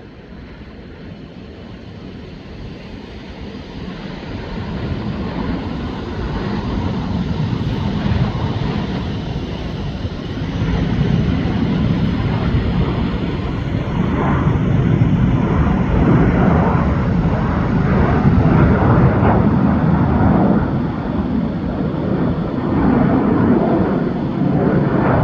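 Jet airliner engine noise on the runway: a rumble that builds over about the first ten seconds, then stays loud and steady.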